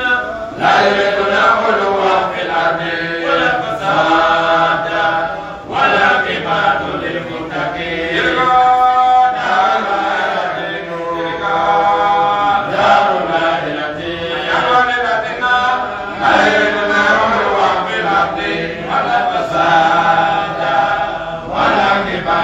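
Male voices chanting an Islamic religious recitation through a microphone, in long melodic phrases with brief pauses for breath between them.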